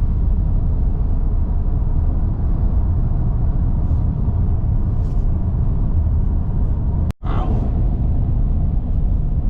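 Steady low road and engine rumble inside a moving car's cabin at highway speed, with a momentary break in the sound about seven seconds in.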